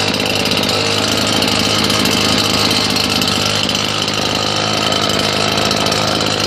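Husqvarna 580BTS backpack blower's two-stroke engine running steadily on a test run after its kill switch wires were replaced.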